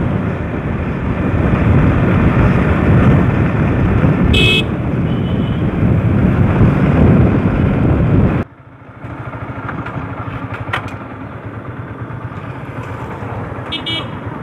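Motorcycles riding along a road in a group: loud steady engine and road noise. A short horn toot comes about four seconds in. About eight and a half seconds in the sound drops suddenly to a quieter steady engine and traffic noise.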